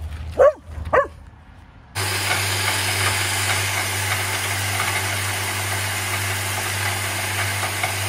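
Two short, sharp barks from a small dog. Then, from about two seconds in, a small electric feed mill runs loudly and steadily with a constant motor hum as grain is fed into its hopper.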